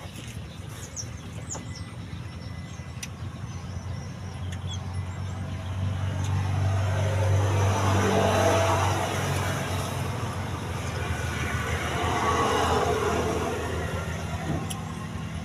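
A motor vehicle's engine humming steadily, growing louder about a third of the way in and again a little later, then fading.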